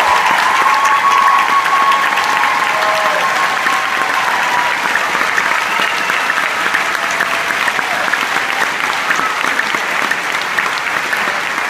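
Large theatre audience and cast applauding at a curtain call: dense, steady clapping with a few held cheers in the first few seconds, slowly easing off toward the end.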